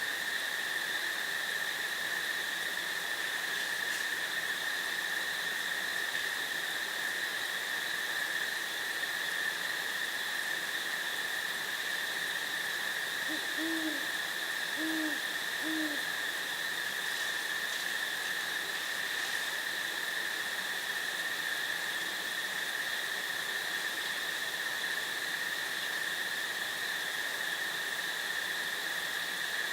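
Three low owl hoots about a second apart, near the middle, over a steady high-pitched insect drone.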